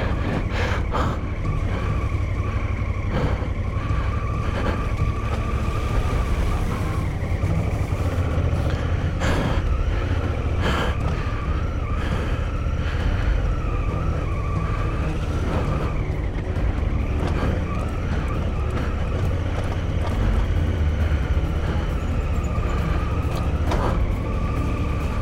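Adventure motorcycle riding along a rough dirt track: a steady low engine rumble with a wavering whine over it, and a few knocks from the bumpy ground.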